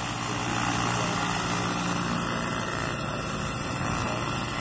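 Radio-controlled scale CH-47 Chinook model helicopter hovering low over the ground on its approach to land, its twin rotors and drive running. It makes a steady drone with a strong high hiss, growing louder over about the first second and a half as it comes nearer, then holding steady.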